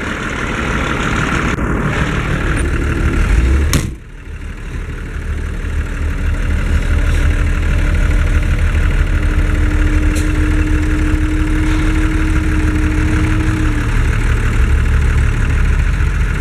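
The six-cylinder diesel engine of a 1968 Unimog 406 running steadily, heard from inside its cab, with one sharp click about four seconds in.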